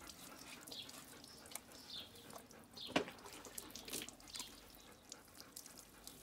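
Water poured from a small plastic jug, splashing and dripping off a wet Bernese Mountain Dog's coat while the dog is rinsed. There are scattered small splashes and drips, and a single sharp knock about three seconds in.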